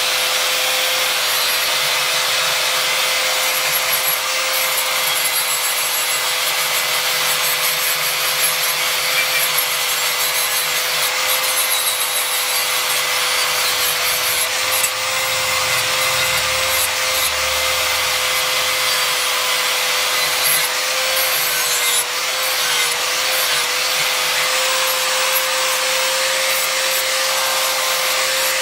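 Handheld angle grinder running steadily with a high, even whine, its abrasive disc grinding across the flat of a steel knife blade to resurface it. The grinding noise stays steady, with brief small dips as the disc is moved over the blade.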